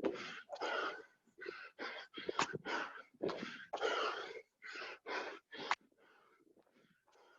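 A man breathing hard and fast from the exertion of a long set of burpees, loud rasping breaths about two a second. The breaths become much fainter about six seconds in.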